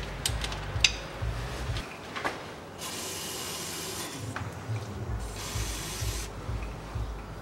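Aerosol spray can with a straw nozzle hissing in two spurts of about a second each, about three and five seconds in, sprayed at an axle drain plug. Before that, a few light clicks of a wrench on the plug.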